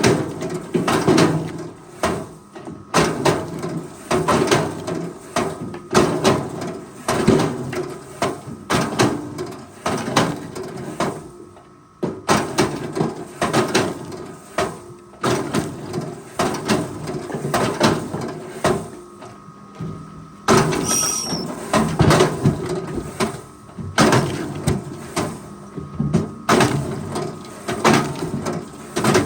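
Irregular knocking and clattering, with clusters of sharp knocks following one another over a faint steady hum.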